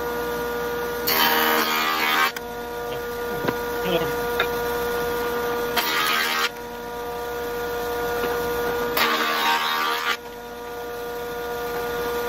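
Jointer running with a steady hum, its cutterhead cutting a wood blank in three passes. Each pass is a loud rushing burst of about a second: about a second in, about six seconds in, and about nine seconds in.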